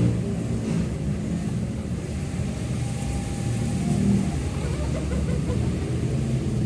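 Steady low outdoor rumble, with faint brief higher tones about three to four seconds in.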